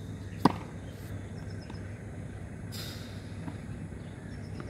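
A tennis racket hits a ball once about half a second in: a single sharp pop with a short ring. A steady low hum runs underneath.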